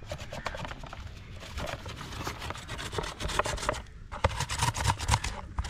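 Rapid, irregular rubbing and scraping strokes, with a brief pause about four seconds in.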